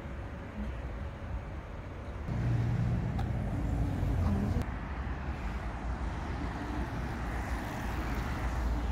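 Road traffic on a busy multi-lane road: a steady rush of cars and trucks passing. It gets louder about two seconds in, with a low engine hum for a couple of seconds.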